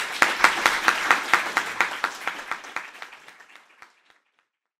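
Audience applauding: many hands clapping at once, the claps thinning out and dying away about four seconds in.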